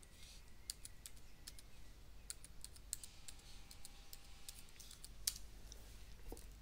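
Computer keyboard keys tapped in an irregular run of faint clicks as a passphrase is typed at a terminal prompt, with one louder keystroke a little past five seconds in.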